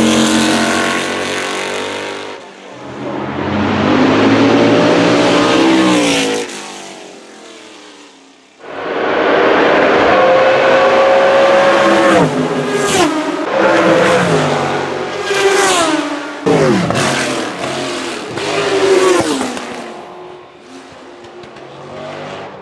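Group C sports-prototype race cars going by at speed one after another, each engine note rising hard under acceleration, then dropping steeply as the car passes or brakes and downshifts. Several sharp cracks come in the middle stretch.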